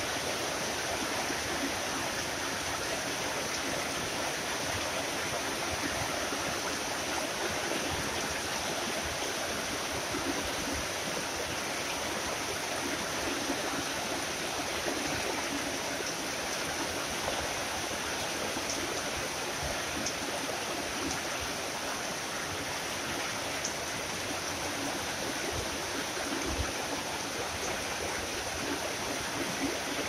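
Heavy tropical rain falling steadily, a dense, even wash of water noise that neither builds nor lets up.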